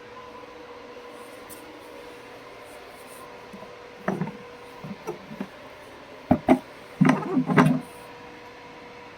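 A faint steady hum, then a run of knocks and short rubbing sounds about halfway through, the loudest near the end.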